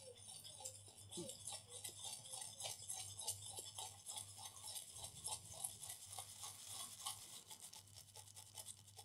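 Faint, rapid scratchy strokes of a small brush scrubbing a wet laptop motherboard, washing off wine residue with water.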